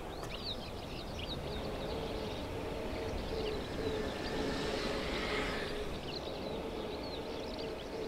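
A van's engine running steadily as it drives across open ground, with many small birds chirping high and busily throughout.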